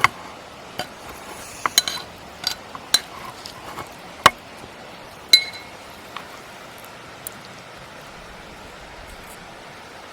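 Metal utensils and cookware clinking: a dozen or so sharp taps and clicks over the first six seconds, one with a short ringing note. After that there is only a steady background hiss.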